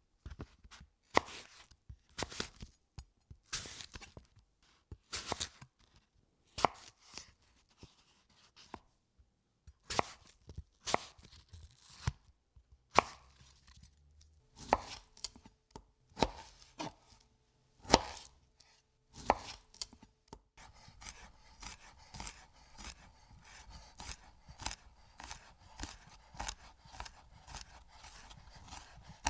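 Knife chopping food on a cutting board: sharp single chops spaced unevenly about a second apart, then a quicker, lighter run of even chops in the last third.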